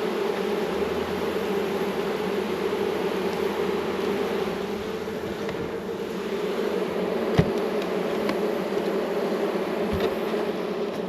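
Many honey bees buzzing steadily around the hives, with a sharp knock about seven seconds in and a fainter one shortly before the end.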